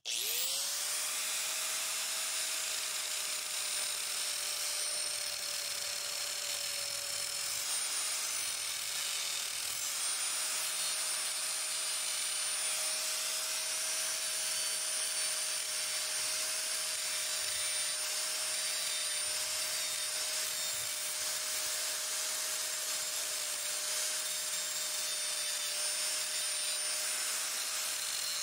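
Four-and-a-half-inch angle grinder switching on and spinning up to speed, then grinding steadily into the motorcycle frame at the kickstand mount with a constant whine and hiss, opening up a crack before it is welded.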